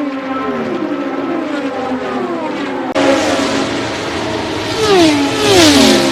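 IndyCar race cars passing at speed one after another, each engine's high-revving note dropping in pitch as it goes by. About halfway through the sound changes to a clearer, brighter recording, where three cars pass in quick succession; the loudest pass comes near the end.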